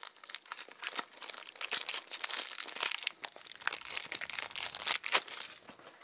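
A plastic blind-bag packet crinkling and tearing as it is handled and opened, a dense run of sharp crackles that stops shortly before the end.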